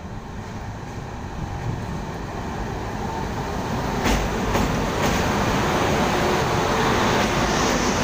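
Electric locomotive hauling a freight train of covered wagons, approaching and passing close by on a steel girder bridge. Its rumble grows steadily louder, with a few sharp clacks about four seconds in as the locomotive draws level, then the steady rattle and rumble of the wagons rolling past.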